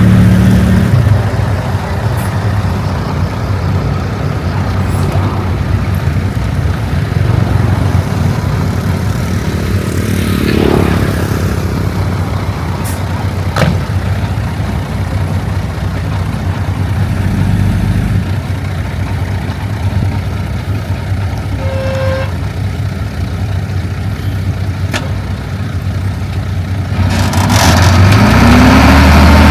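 Heavy diesel engine of earthmoving machinery running under load, louder at first and quieter through the middle. It revs up with a rising pitch near the end, and a brief beep sounds partway through.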